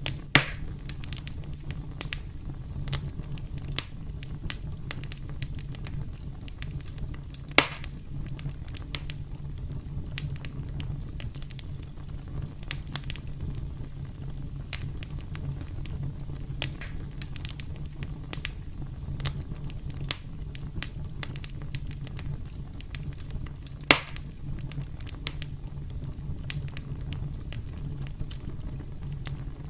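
Wood campfire crackling: a steady low rumble of burning wood with a constant scatter of small snaps and three louder pops, the first about half a second in, the second at about seven and a half seconds, and the third about four-fifths of the way through.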